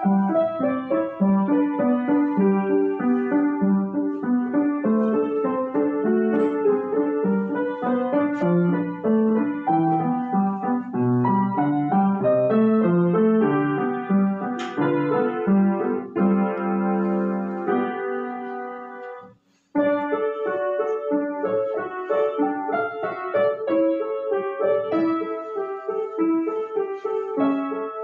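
Solo piano music, a steady flow of notes. It fades out about 19 seconds in, breaks off briefly, then the piano starts again.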